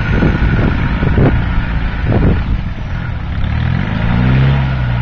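Land Rover Defender's engine pulling through a muddy water splash, with water surging around the wheels a few times. About three and a half seconds in, the engine revs up and holds as the truck climbs out of the water.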